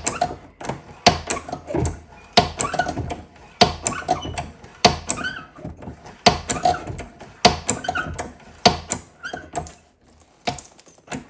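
Hand-operated hydraulic pressure-test pump being stroked steadily, a knock with a squeak about every 1.2 seconds, pumping water into a pipe run with an unpressed press fitting. A faint squeaky whistle comes from air being forced out through the unpressed fitting. The strokes stop near the end.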